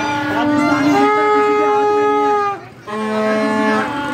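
Music playing loud: a melody of long held notes that steps between pitches. It breaks off briefly about two-thirds of the way through, then picks up again.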